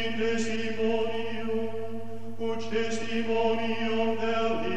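Background music of chanting voices holding long, sustained notes over a steady low tone, shifting to a new note about halfway through and again near the end.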